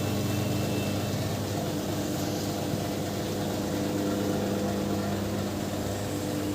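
Steady, unchanging mechanical hum of a running engine or motor, with no revving or change in speed.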